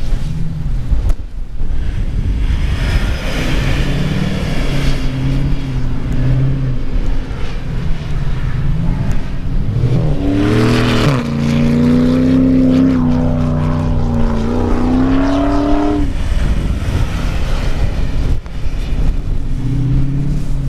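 A pickup truck's engine revving hard under full load as it climbs a steep, soft sand dune. About ten seconds in the engine note climbs and holds high for several seconds, then falls away.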